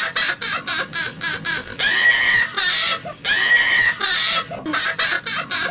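Witch's cackling laugh in a high woman's voice, in quick staccato bursts about four or five a second, broken twice near the middle by longer drawn-out laughs.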